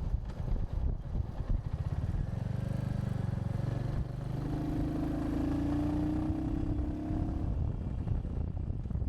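Wind buffeting the microphone of a moving motorcycle, over the note of the Royal Enfield Hunter 350's single-cylinder engine. The engine note comes through most clearly and steadily from about four to seven and a half seconds in.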